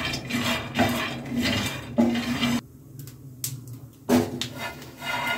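Raw peanuts dry-roasting in a nonstick frying pan, stirred with a wooden spatula: the nuts rattle and the spatula scrapes across the pan in repeated strokes. There is a quieter pause about two and a half seconds in before the stirring resumes.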